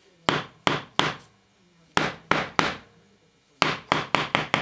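A steel hydraulic roller lifter from a 1994 Ford 4.0L OHV engine rapped against a block of wood to knock out the plunger and check ball assembly held in its bore by oil suction. Three sharp taps, three more about a second later, then a quick run of taps near the end.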